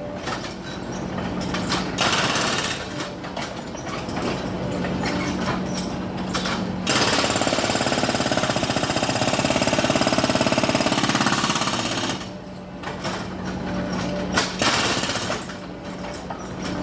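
Jackhammer breaking up concrete pavement: a rapid, continuous hammering rattle. It eases off briefly a couple of times and is loudest in a long stretch around the middle.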